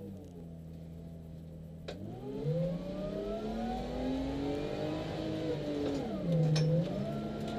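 Supercharged Lexus IS200's straight-six engine, heard from inside the cabin: it holds steady revs, then after a small click about two seconds in it accelerates hard, its pitch climbing for a few seconds with a faint higher whine rising alongside. Near the end the revs dip briefly and pick up again.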